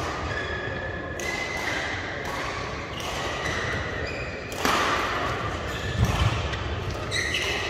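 Badminton rally: rackets strike the shuttlecock several times with a sharp crack that rings in a large hall, between thin squeaks of shoes on the court mat. A heavy thud of a lunging footfall comes about six seconds in.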